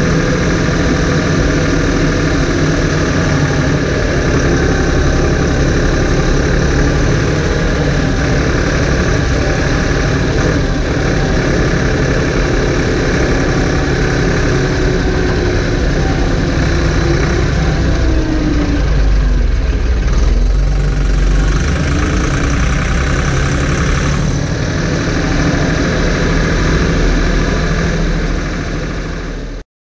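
Steyr 964 Turbo tractor's diesel engine running with a steady, loud drone, heard from inside the cab while it pulls a rotary rake across a hayfield. The sound cuts off abruptly near the end.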